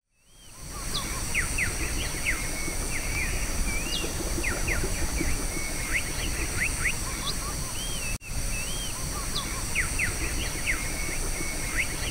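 Rainforest birds calling with quick whistled notes and sweeping chirps, over a steady high-pitched drone of insects and a low rumble. The sound breaks off sharply for an instant about eight seconds in.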